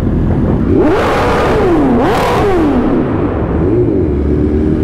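Motorcycle engines inside a car park, one revving up and falling back about three times in the middle, then settling into a steadier hum near the end.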